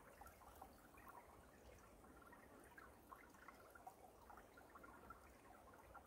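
Faint trickling of a shallow stream running over stones and gravel, with small gurgles and plinks scattered through it.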